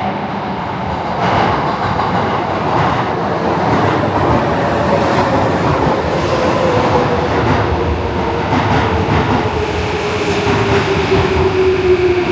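Electric commuter train running on rails: loud steady rumble and clatter of the wheels over the track, with a motor whine that falls slowly and steadily in pitch as the train slows.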